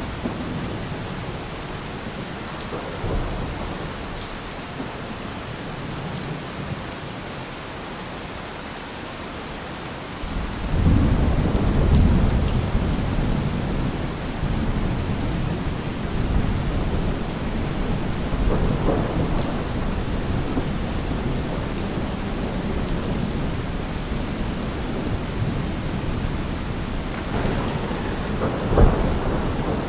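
Steady heavy rain with rolling thunder: a long low rumble builds about a third of the way in and rolls on, and a sharp thunderclap cracks near the end.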